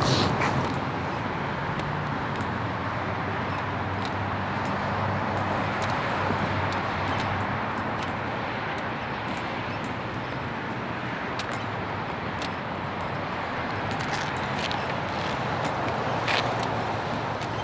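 Steady outdoor ambience: a constant rush of wind with distant city traffic underneath.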